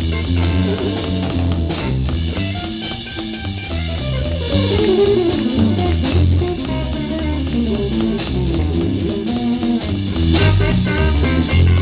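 Live blues band playing an instrumental passage: electric guitar leads with melodic runs and bent notes over a drum kit keeping a steady beat.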